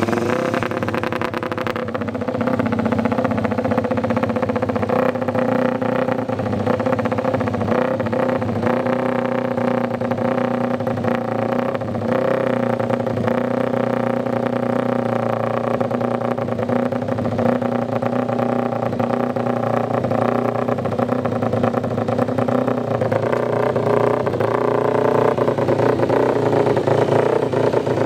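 Mahindra Moto3 racing motorcycle's 250 cc single-cylinder four-stroke engine, just started on a rear-wheel roller starter, running at idle through its open racing exhaust. Its pitch wavers slightly and it grows louder near the end.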